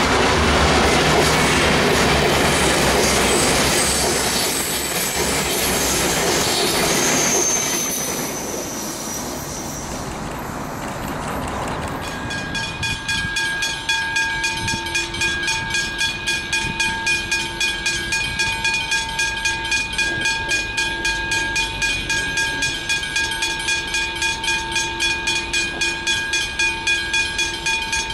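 A V/Line VLocity diesel railcar set passes close by, its engine and wheels making a loud even rush that fades away about ten seconds in. About twelve seconds in, a level crossing bell starts ringing, about two strokes a second, warning of an approaching train.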